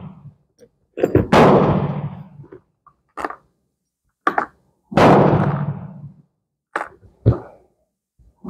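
Three gunshots, about three and a half seconds apart, each with a ringing tail off the concrete of the covered range, and a few lighter clicks and knocks between them.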